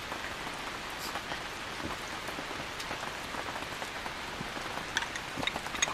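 Steady rain falling, an even hiss of drops, with a few faint clicks near the end.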